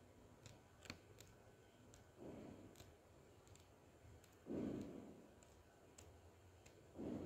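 Faint rustling of textbook paper pages being turned, three soft swishes about two and a half seconds apart, the second the loudest, with light clicks of paper and handling in between.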